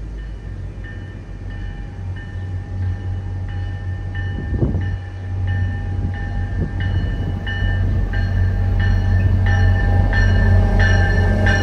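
An MBTA commuter train's diesel locomotive approaches, its engine rumble growing louder. Its bell rings steadily, about one and a half strokes a second, each stroke getting louder as the train nears.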